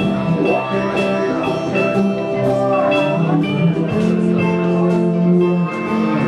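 Music with sustained guitar-like notes, a few bending in pitch, over a steady drum beat.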